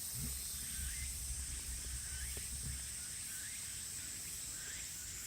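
Faint outdoor ambience: a steady high hiss with short chirps repeating about every three-quarters of a second, and a low rumble in the first couple of seconds.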